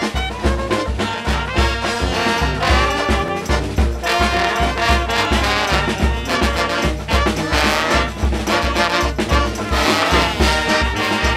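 Brass band music: horns playing a lively melody over a steady, pulsing bass beat of about two beats a second.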